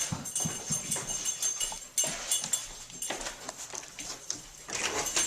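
A dog's claws tapping and clicking irregularly on a hard floor as it moves about.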